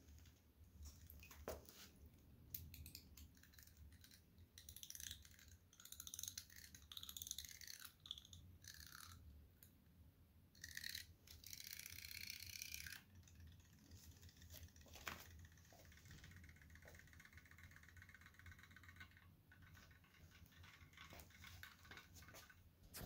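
Near silence, with faint scratching and rustling from a hand working in a glass bowl of water. These handling sounds are strongest around the middle, then give way to a faint steady buzz.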